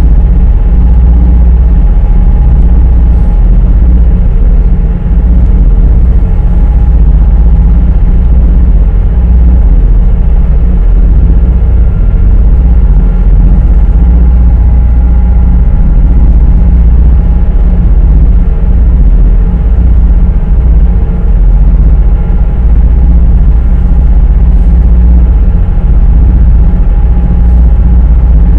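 High-speed ferry's engines running at cruising speed, heard from inside the passenger cabin as a loud, steady low drone with a faint steady whine above it.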